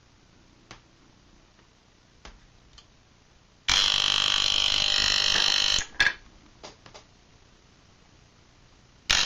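Moser 1400-type hair clipper with a vibrating electromagnetic motor, switched on for about two seconds of loud, even buzzing, then off. There is a short blip of buzz right after, and it is switched on again near the end. Small handling clicks fall in between. These are test runs while the motor's armature gap and adjustment screw are being set to cure its excessive buzzing.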